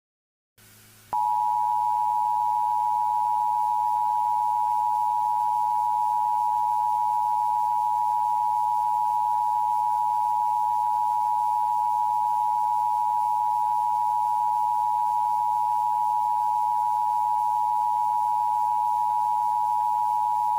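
Emergency Alert System attention tone: a steady electronic alert tone near 1 kHz. It starts about a second in and holds unbroken, with a faint low hum beneath.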